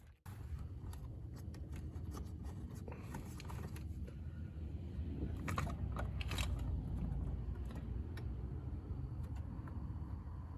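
Hands refitting front-end parts on a side-by-side: scattered clicks and scrapes of plastic and metal, with two louder scrapes near the middle, over a steady low rumble.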